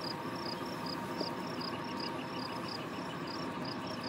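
An insect chirping high and rhythmically, in short pulses two or three times a second, over steady outdoor background noise.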